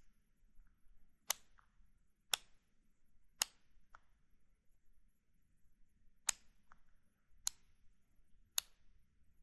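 NovoRapid FlexPen insulin pen clicking: six sharp clicks about a second apart, in two groups of three with a pause between, a few followed by a fainter tick.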